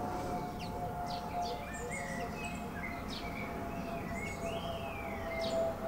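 Garden birds chirping and twittering, with short whistled notes that glide up and down. A steady droning tone runs underneath.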